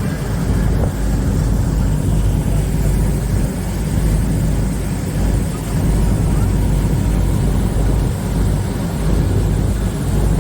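Steady low drone of a tour catamaran's engines while underway.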